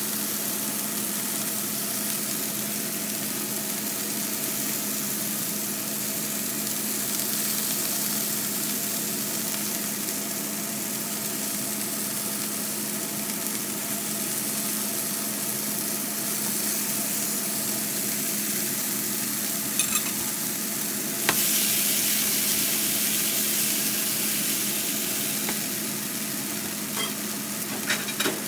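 Pieces of beef steak sizzling in a frying pan as they are turned with metal tongs, with a few sharp clicks of the utensils against the pan. The sizzle gets a little louder about two-thirds of the way through.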